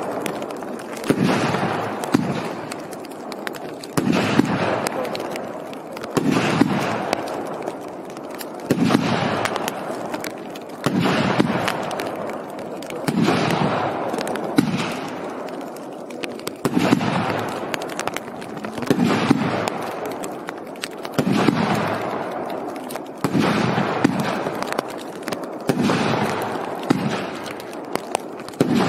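Legal Jet B25-5001 48 mm fireworks cake firing single shots about every two to two and a half seconds. Each shot is a sharp bang followed by a fading hiss.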